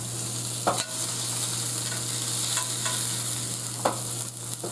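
Rib eye steak sizzling steadily in a hot grill pan straight from the broiler, with a few short metallic clinks of tongs against the pan as the steak is turned over.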